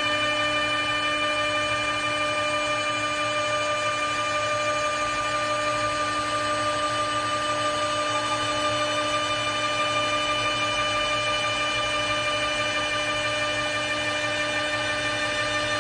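Single-spindle CNC wood lathe's milling spindle running with a steady high whine as it cuts a wooden billiard cue blank, with the hiss of wood being milled underneath.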